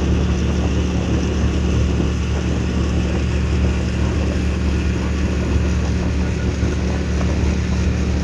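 Boat motor running at a steady speed, a constant low drone that neither revs up nor dies away.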